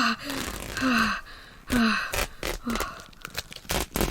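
A person gasping and grunting in short, breathy sounds that each drop in pitch, about five of them. Through the second half comes an irregular run of sharp snaps or rips.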